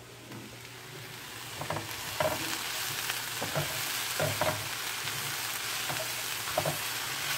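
Vegetables sautéing in a skillet, a steady sizzle that comes up over the first two seconds. A wooden spoon stirs them, scraping and knocking against the pan half a dozen times.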